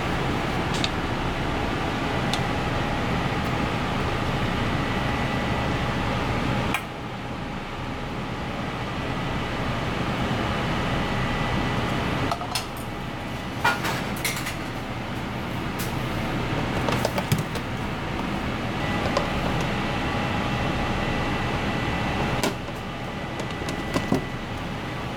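Steady hum of kitchen machinery, such as ventilation fans, with a faint high steady tone, and a few light clinks of utensils and dishes. The background hum drops abruptly in level a few times.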